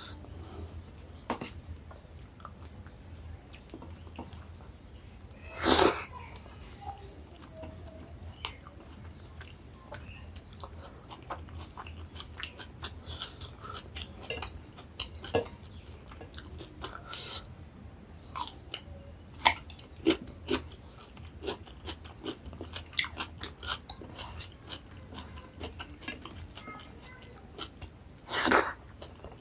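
A person eating rice and taro curry close to the microphone: wet chewing and lip-smacking with many small clicks, and two louder, brief crunches or bites, one about six seconds in and one near the end.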